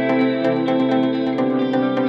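Background music: a gentle instrumental tune with a light, regular beat.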